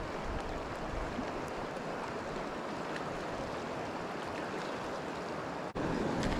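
Steady rushing of a river flowing over rocks. It cuts out for an instant near the end and comes back a little louder.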